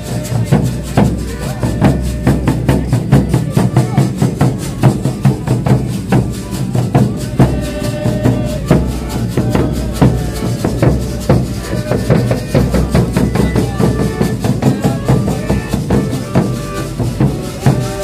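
Folia de Reis group playing: large hand-held bass drums beaten in a steady, driving rhythm, with an accordion playing over them from about halfway through.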